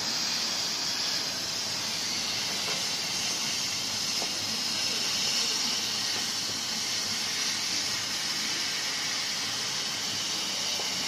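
CO2 laser engraving and cutting machine working on paper card: a steady airy hiss, strongest in the high range, from the air blowing through the laser head's nozzle and the machine's fans, with faint short whirs as the head moves.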